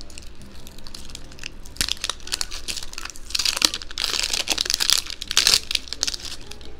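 Thin plastic shrink wrap being peeled off a plastic Mini Brands capsule ball, crinkling and crackling, loudest from about three to five and a half seconds in.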